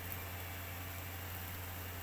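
Beef satay skewers sizzling over a charcoal grill: a steady hiss with a faint crackle just after the start, over a low steady hum.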